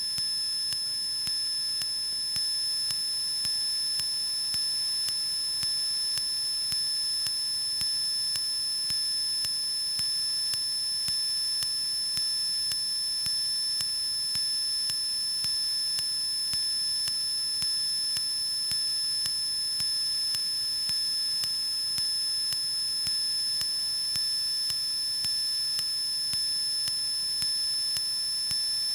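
Steady high-pitched electrical whine made of several flat tones, with a faint tick about once a second, picked up on the cockpit intercom audio feed of a Cessna 152 in its climb. The engine itself is barely heard.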